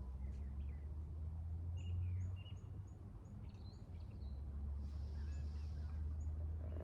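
Outdoor woodland ambience: a steady low rumble with small birds chirping faintly in short high notes, several in a row about two to four seconds in and a few more near the end.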